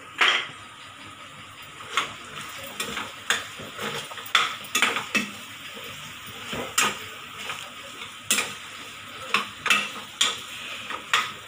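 Steel spoon scraping and clinking irregularly against a black kadai while stirring soya chunks in a sauce just thickened with cornflour slurry, over a steady sizzle from the gas flame. A louder knock comes right at the start.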